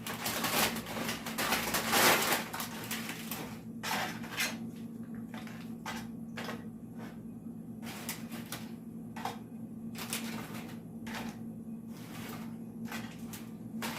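Tortilla chips being spread out in a baking pan by hand: a run of crisp crackles, rustles and light clatters, busiest in the first two seconds, then scattered.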